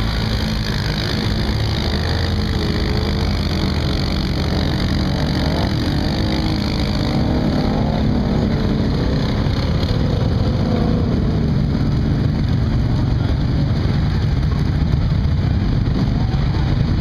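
Engines of a four-wheeler ATV and swamp buggies running as they drive through shallow muddy water: a steady low rumble, its pitch wavering for a few seconds in the middle.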